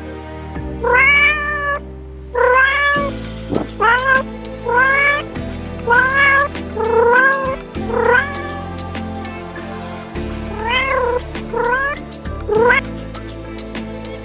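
A cat meowing over and over, about a dozen short meows that rise and fall in pitch, with a pause of a couple of seconds in the later half. Soft background music plays under it.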